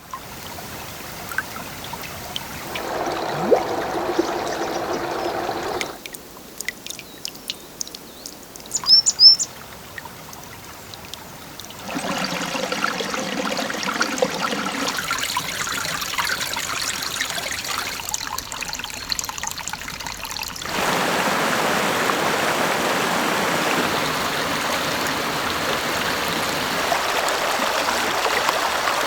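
A string of short recordings of winter mountain water, changing abruptly every few seconds: a small brook trickling and bubbling, then streams and creeks flowing more fully. Two quick high chirps sound about nine seconds in. The last several seconds are a steady rush of stream water.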